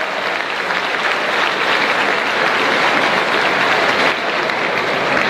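Large audience applauding, with steady, dense clapping.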